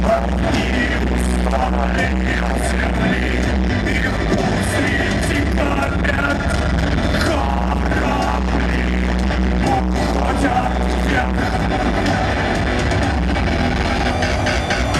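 Loud live electronic rock from a full band, with a male lead singer's voice over a heavy bass line, keyboards and drums.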